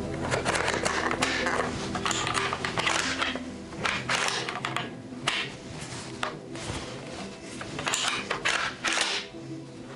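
Metal clicks and rattles of a G3 battle rifle being handled, with its steel magazine being fitted, in a string of sharp knocks over steady background music.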